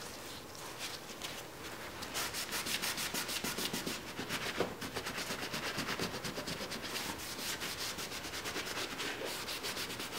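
Paper towel rubbed back and forth over the steel blade of a Stanley Bailey No. 5 hand plane, wiping off rust loosened by a vinegar soak: a quiet, scratchy wiping in quick, even strokes that settle into a steady rhythm about two seconds in.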